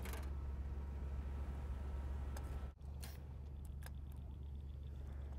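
Steady low hum of a motor running, with a sharp splash of an arrow striking a fish in the water right at the start and a few faint ticks later. The hum briefly cuts out about halfway through.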